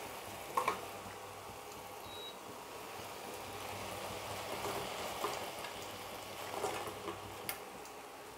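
Manchuria sauce sizzling steadily in a hot pan as soya chunks are stirred into it, with a few light clicks of the spoon against the pan.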